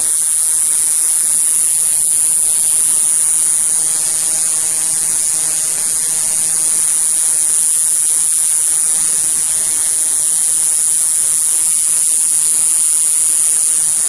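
Male citrus cicada (Diceroprocta apache) singing with its tymbals: one loud, steady, high buzz that runs unbroken as part of a song lasting over a minute. It is recorded close up on a cell phone microphone, which makes it sound distorted and hum-like.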